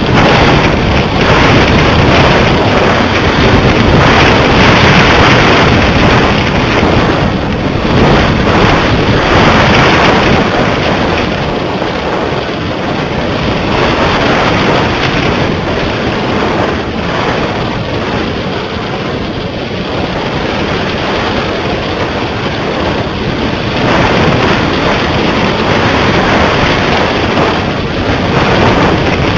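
Wind buffeting the microphone of a small camera carried aloft on a kite: a loud, rough rushing that swells and eases in gusts, strongest in the first ten seconds and rising again near the end.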